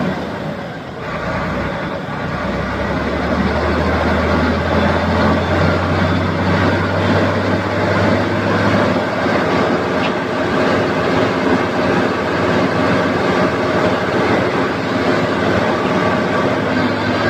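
Diesel engine of an XCMG mobile crane running steadily. Its level dips briefly about a second in, then it settles back to an even run.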